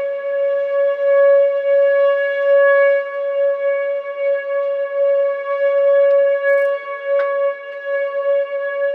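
Outdoor tornado warning siren sounding a steady, unwavering tone, its loudness swelling and dipping, sounded for a tornado warning.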